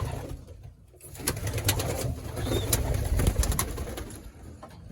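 Racing pigeons cooing in a loft, a low steady burbling that drops away briefly about a second in, with a few sharp clicks in the middle.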